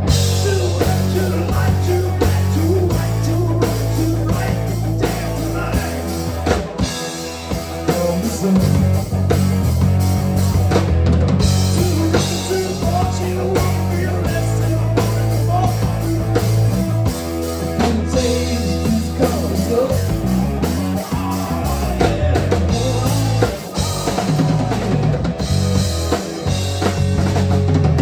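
Live rock band playing an instrumental passage: drum kit with kick drum, electric bass and electric guitar.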